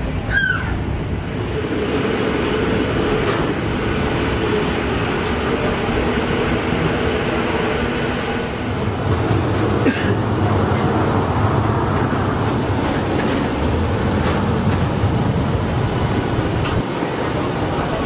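Steady rumble and hiss inside a Boeing 737-800's passenger cabin, with a thin high whine coming in about halfway.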